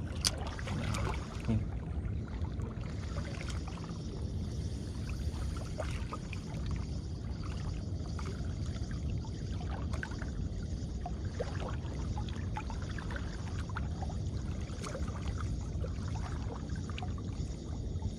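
A Ryobi Smurf 1000 spinning reel cranked steadily to retrieve a cast lure, its faint ticks and clicks scattered over a steady low rush of wind and water.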